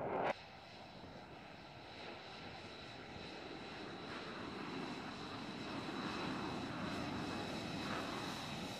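A jet passing overhead is cut off abruptly a fraction of a second in. It is followed by an F-35's F135 turbofan running at taxi power: a steady rumble with several high, steady whistling tones on top, growing gradually louder as the jet taxis closer.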